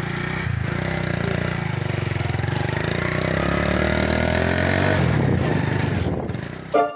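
Motorcycle engine running as the bike rides along, its pitch rising as it speeds up over a couple of seconds, then dying away near the end as music cuts in.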